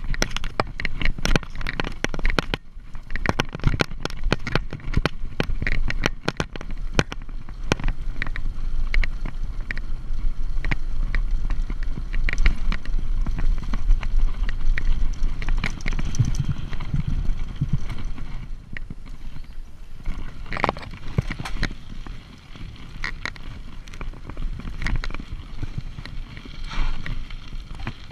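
Mountain bike rattling over a bumpy grass and dirt trail: a dense run of clicks and knocks from the chain and frame jolting on the rough ground, over a low wind rumble on the microphone. The clatter eases in the last third as the ride goes on.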